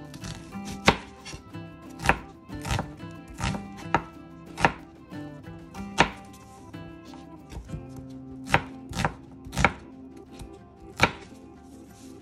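Chef's knife slicing red onions on a plastic cutting board: about a dozen sharp knocks of the blade striking the board, unevenly spaced, a few much louder than the rest.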